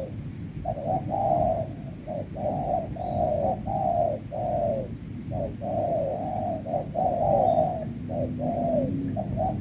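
Spotted doves cooing, a run of short coos following one another almost without a break.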